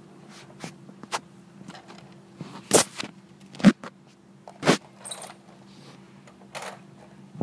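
Hard plastic clicks and knocks of a Lego model being handled, its parts knocked and moved by hand, with three sharper knocks about three, four and five seconds in. A steady low hum runs underneath.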